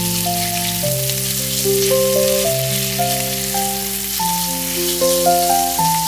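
Food sizzling as it fries in oil in a pan, a steady crackling hiss, under background music of slow, held melody notes.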